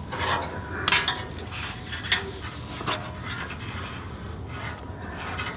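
Handling noise as a temperature probe and its wire are fitted to the grill grate: a few light metallic clicks and scrapes among soft rustling.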